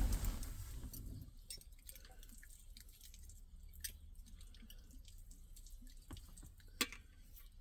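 Water trickling and dripping as metal utensils are rinsed by hand, with scattered light clicks and one sharper click near the end.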